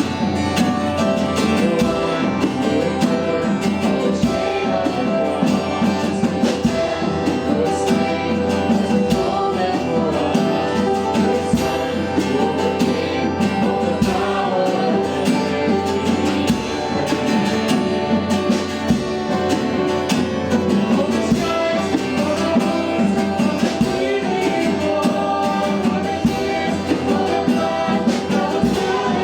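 Church worship music: a band with guitar accompanying singing voices, continuous and steady in level.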